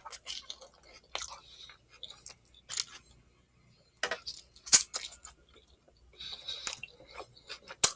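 Close-miked chewing of a Philly cheesesteak sub on a soft roll, with short sharp crunches and clicks scattered through. It pauses briefly about three seconds in, and the loudest crunch comes a little under five seconds in.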